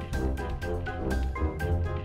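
Background music with a steady beat and a strong bass line under a melody of short notes.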